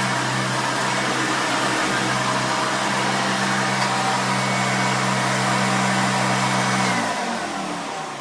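1989 Hoover Elite 350 vacuum cleaner running steadily, then switched off about seven seconds in, its motor winding down with falling pitch.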